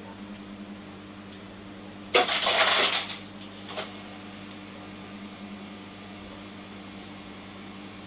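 A steady low electrical hum, with one loud breathy exhale about two seconds in that lasts under a second, and a faint second breath soon after.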